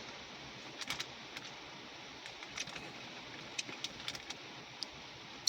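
Low steady hiss with a few faint, scattered clicks and ticks.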